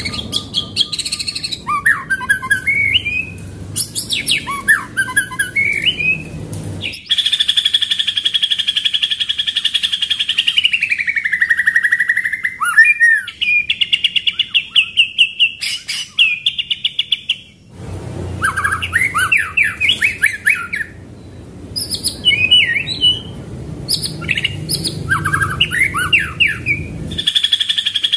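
White-rumped shama singing: quick volleys of sharp repeated 'shot' notes alternating with long rolling trills, one roll sliding down in pitch about ten seconds in.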